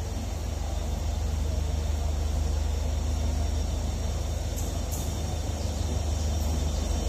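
Diesel locomotive's engine running with a steady low rumble as the locomotive rolls slowly in along the platform, with a couple of brief high-pitched squeaks about five seconds in.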